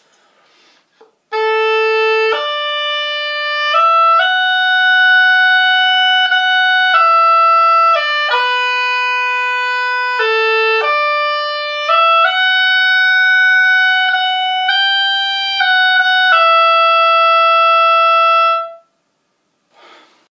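Oboe playing a melody bagpipe-style in one unbroken line without a break for breath, each note held at a flat, steady pitch with no vibrato and no swells, the notes slurred together and tongued only to separate repeated notes. It starts about a second in and stops near the end.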